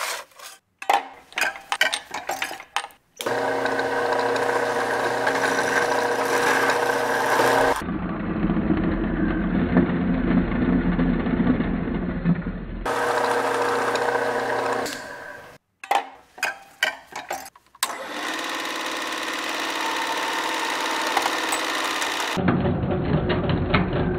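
Machining an aluminium LED light bar: a circular chop saw cutting through the bar's housing and a twist drill boring into it, heard as long steady cutting runs. Bursts of sharp clanking impacts come at the start and again about two-thirds through, with music under it all.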